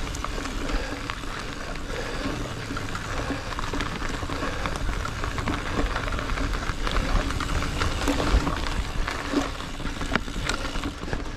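Mountain bike riding along a dirt woodland trail: a steady rush of tyre and wind noise with many small clicks and rattles as the bike goes over bumps, and a low wind rumble on the microphone.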